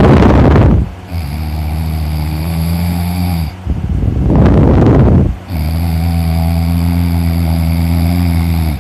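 A person snoring heavily in a regular breathing rhythm: a loud, noisy breath about a second long alternates with a longer, steady, low-pitched snore, two full cycles.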